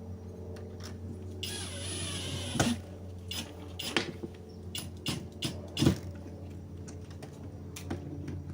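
Tools and metal lock hardware being handled during installation: a brief rustling hiss about a second and a half in, then a series of separate clicks and knocks, over a steady low hum.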